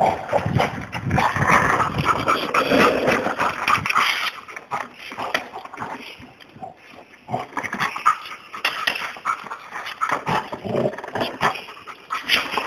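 Yellow Labrador retriever whining and yipping in irregular bursts, with a lull about halfway through.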